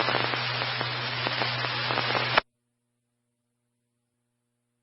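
Two-way radio static hiss with a steady low hum on an open channel, cut off abruptly about halfway through as the squelch closes, leaving near silence.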